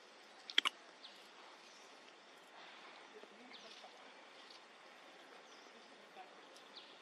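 Outdoor ambience: a steady hiss of background noise with short high chirps from small birds every second or two, and a sharp double click about half a second in.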